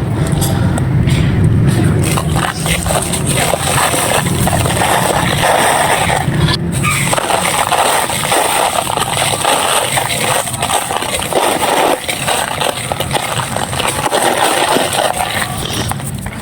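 Dry clay pot pieces and dried clay crumbling and crunching in a dense, continuous run of small crisp crackles, soft but crispy.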